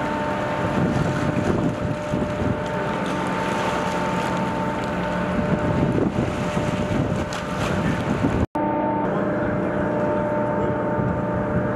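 Outboard motors of Zodiac combat rubber raiding craft running on open water, with wind on the microphone. The sound breaks off sharply about eight and a half seconds in and gives way to a steady hum.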